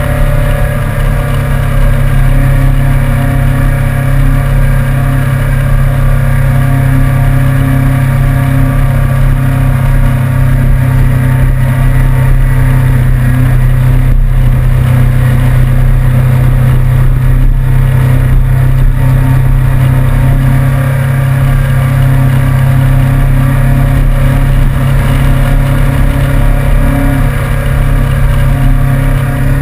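Suzuki GSR750's inline-four engine running at a steady cruise while the motorcycle rides along, its note holding fairly level throughout, with a constant rush of road noise.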